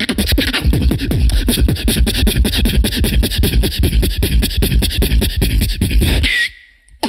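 Human beatboxing into a microphone: a fast, dense stream of mouth-made kicks, snares and clicks over deep bass, which cuts off suddenly about six and a half seconds in to a brief pause.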